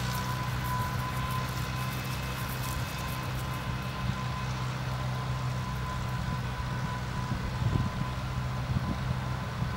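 Farmall Cub tractor's small four-cylinder flathead engine running steadily under load as it pulls a plow.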